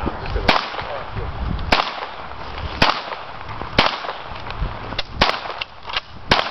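Six gunshots fired one after another, about a second apart, each a sharp crack with a short echo.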